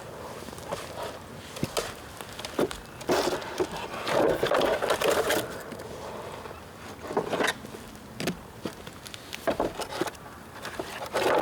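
Dry bamboo crackling and snapping: irregular sharp cracks, bunching into louder rapid clusters a few seconds in and again near the end.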